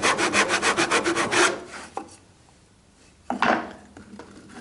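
Tenon saw cutting down through timber by hand with quick, even strokes, about five a second, stopping about a second and a half in. A short scrape follows near the end.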